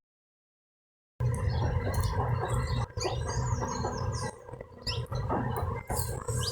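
After about a second of dead silence, outdoor ambience: a steady low rumble of wind on the microphone with scattered short high bird chirps and a few clicks.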